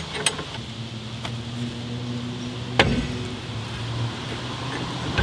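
A few sharp metallic clicks and one louder knock, about three seconds in, as a wrench turns the screw of a puller clamped on a rusted VW brake drum, over a steady low hum.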